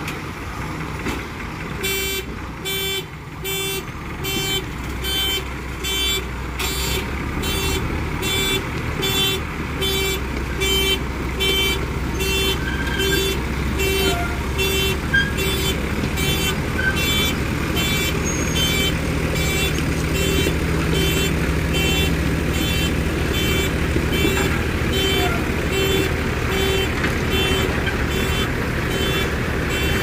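JCB 3DX Super backhoe loader reversing under load: its reverse alarm beeps about twice a second, starting about two seconds in, over the steady running of its diesel engine as it tows a stuck road roller on a chain.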